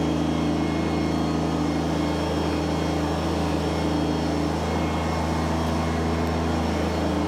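Kubota BX sub-compact tractor's diesel engine running at a steady speed.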